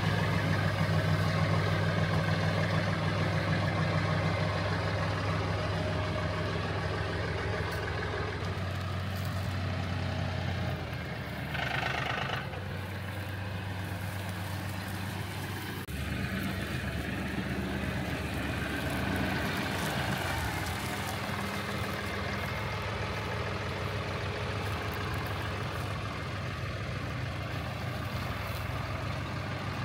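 Massey Ferguson compact tractor's diesel engine running steadily as it works with its front loader, the engine note shifting a few times. A brief higher-pitched sound stands out about twelve seconds in.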